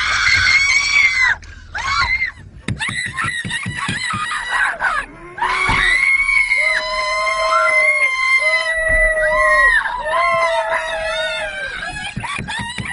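Passengers screaming in fright inside a car: a string of high-pitched screams, with three long held ones in a row about halfway through and shorter outbursts around them.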